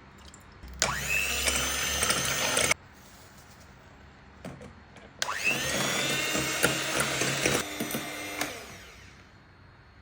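Small electric kitchen appliance motor run in two bursts of about two seconds each, whining up to speed at each start; after the second burst it winds down over about a second.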